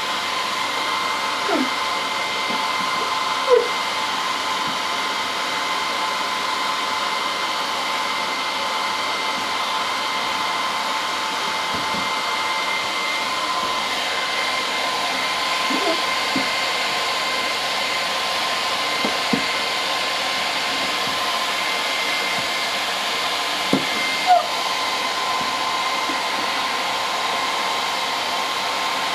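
Electric hot-air blower running steadily as heat is played over freshly applied vinyl graphics on a snowmobile hood, a constant hiss with a steady whine. A few brief squeaks come through it now and then.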